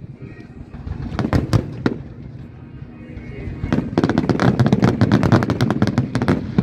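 Aerial fireworks shells bursting: a few separate bangs, then from about four seconds in a rapid, dense barrage of bangs and crackling.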